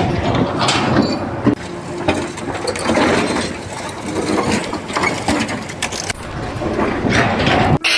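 Machinery clattering with irregular mechanical clicks and knocks over a steady background din.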